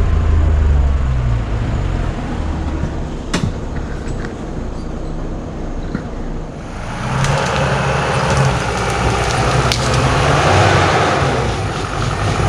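Off-road 4x4's engine running under load, revving harder from about halfway through with a loud rushing noise over it, as the vehicle works its way up a rough trail.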